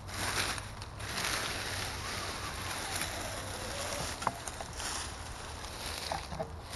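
Radio-controlled scale crawler truck driving forward, its electric motor and gears whirring steadily as it crawls over dirt, with a few small clicks of rocks or sticks under the tyres.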